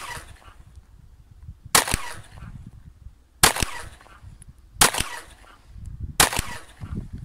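Glock 43 subcompact 9 mm pistol fired four times, the shots about a second and a half apart.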